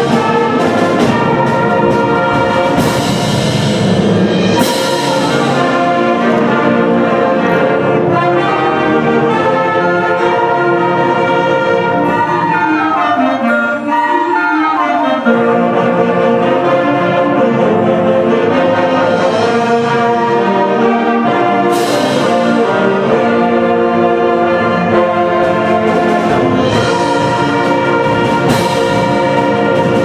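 A concert band plays full, brass-led chords with flutes and saxophones, with cymbal crashes several times. About halfway through the texture thins briefly to running woodwind lines before the full band comes back in.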